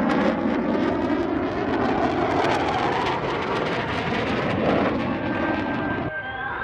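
Jet noise of a Panavia Tornado's two RB199 turbofans passing in a low flyby, a loud continuous rumble with crackle. About six seconds in it cuts abruptly to a thinner, fainter jet sound.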